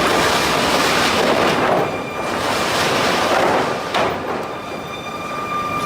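Sawmill machinery running: a loud, continuous noisy clatter with a steady high whine.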